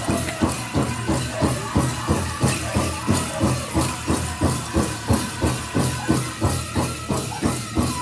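Powwow drum song for the chicken dance: a big drum beaten in a steady, even rhythm of about three beats a second, with jingling bells over it.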